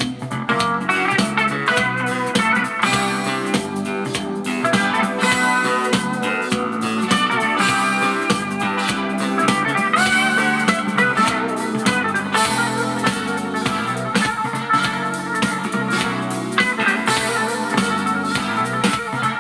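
Instrumental passage of a song with no singing: guitar melody over steady accompaniment with light drums.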